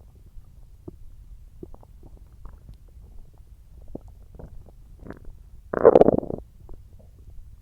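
Human stomach growling and gurgling while digesting watermelon: a string of small gurgles and pops, with one louder, longer gurgle about six seconds in.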